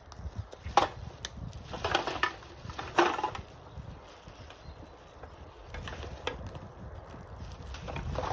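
Rubbish being picked up and handled: sharp clacks and rattles about a second in and again at two and three seconds, then softer rustling with a couple of clicks around six seconds.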